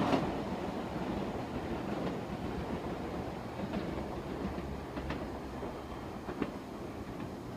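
Meitetsu 6000 series electric train running away from the station. The rumble slowly fades with distance, broken by a few sharp clacks of its wheels over rail joints and points.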